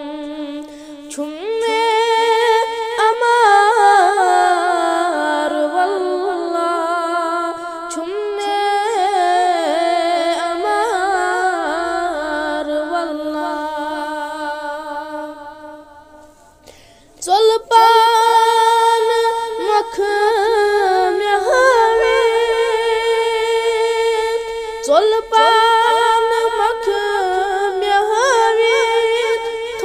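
A high male voice sings a Kashmiri naat without instruments, in long, drawn-out wavering notes with no clear words. About sixteen seconds in, the voice fades nearly away, then takes up the melody again.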